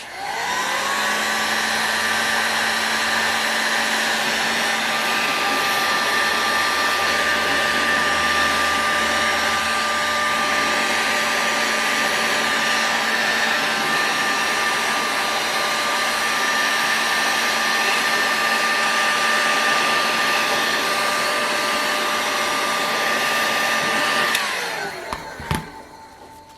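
Electric heat gun switched on, its fan motor spinning up to a steady whirring whine, then switched off about 24 seconds in and winding down. It is heating a small model engine's case to free a stuck cylinder sleeve.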